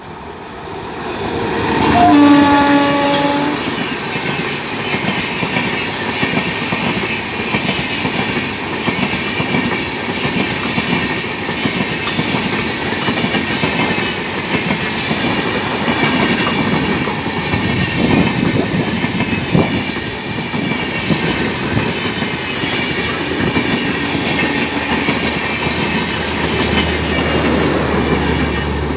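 A WAP-7 electric locomotive sounds one horn blast of about a second and a half as it comes up. Its train of LHB coaches then runs past at speed, the wheels clattering over the rail joints in a steady, loud rumble.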